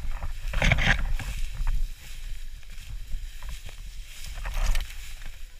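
Footsteps and dry tall grass brushing and swishing against the walker and camera, loudest in the first two seconds and again briefly near the end, over a steady low wind rumble on the microphone.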